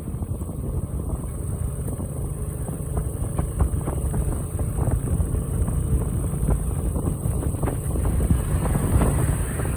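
Motorcycle on the move: wind buffeting the microphone over a steady low rumble, with scattered short crackles.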